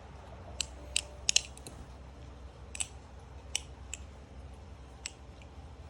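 The One Falcon balisong trainer being flipped. Its handles and blade knock together in about eight sharp, irregularly spaced clicks and taps, some in quick pairs, with the muted type of tap its owner likes.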